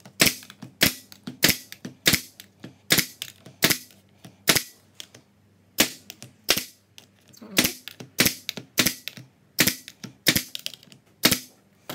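Narrow crown stapler firing staples through two sheets of plywood into a backing board: a quick run of sharp shots about two a second, some twenty in all, with a pause of about a second a little before halfway.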